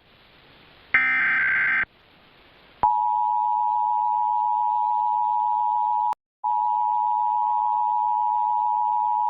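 An Emergency Alert System broadcast test. About a second in comes one short screechy burst of the SAME digital header, then a second of quiet. About three seconds in the EAS attention signal starts: a steady, loud two-tone beep of 853 and 960 Hz played together. It drops out for a moment around six seconds, then carries on.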